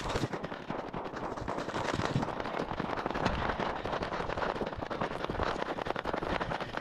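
A runner's footsteps crunching on a loose gravel road, a dense crackle of stones underfoot.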